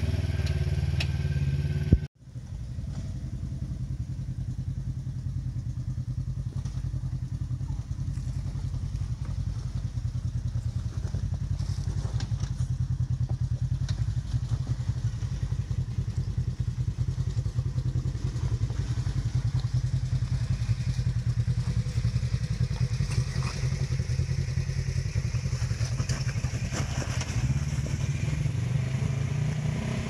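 Polaris RZR XP 1000's twin-cylinder engine running low and steady under load as the side-by-side crawls up a steep rocky climb. There is a sharp click and a moment's dropout about two seconds in.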